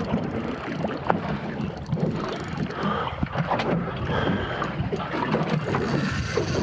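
Wind on the microphone and water around a small boat, with scattered knocks and clicks.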